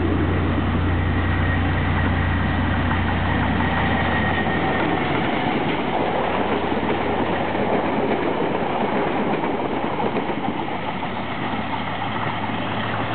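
EMD G22AR diesel-electric locomotive passing close, its engine a deep steady drone that drops away after about four seconds. The steady rolling noise of the rest of the train's wheels on the rails follows as it goes by.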